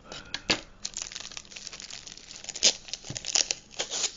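Plastic wrapping crinkling and a cardboard mailing box being handled, in an irregular run of crackles and tearing rustles with a few louder ones in the second half.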